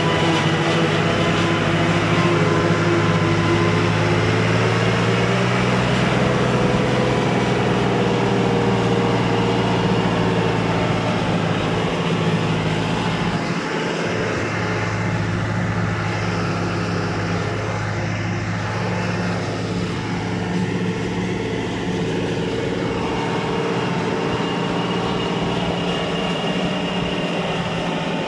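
Landini 105 Power tractor's six-cylinder diesel engine running steadily under heavy load while driving a corn silage harvester, with a brief dip in its note about halfway through. The engine is working hard at the limit of what the harvester asks of it.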